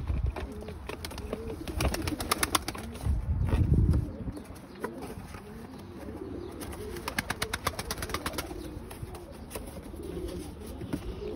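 Domestic pigeons cooing, with two quick runs of sharp clicks, about two seconds in and again near eight seconds, and a brief low rumble a little after three seconds.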